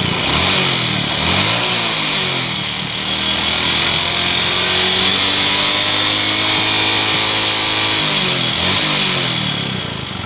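Honda Supra X 125's single-cylinder four-stroke engine being revved: quick blips of the throttle in the first couple of seconds, held at raised revs for several seconds, then blipped again near the end. It runs rough with a rattle that the mechanic takes for a damaged piston, and perhaps a worn connecting rod.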